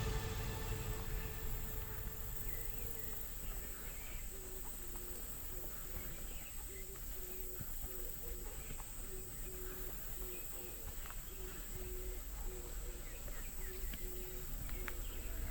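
Marsh wildlife ambience. Insects keep up a steady high drone, with scattered short bird chirps. From about four seconds in, some animal gives a short low call about twice a second.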